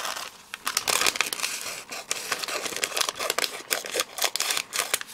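Thin plastic packaging crinkling as it is handled and cut by hand, a dense run of quick, irregular crackles.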